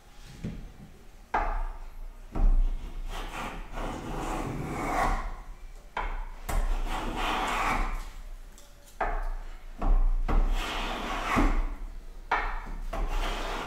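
Metal hand plane being pushed along a wooden board, several long rasping strokes as it takes shavings.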